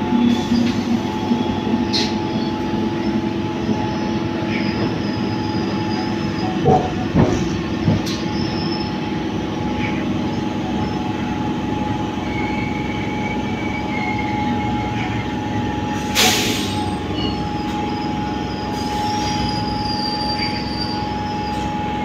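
Two electric multiple-unit local trains running side by side at speed: a steady rumble of wheels on rail under a continuous whining tone. A few sharp clicks come around seven seconds in, and a short loud hiss comes about sixteen seconds in.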